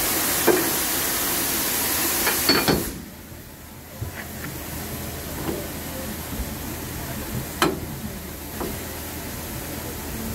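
Steam locomotive venting steam with a loud, steady hiss that cuts off sharply about three seconds in, followed by a few light knocks.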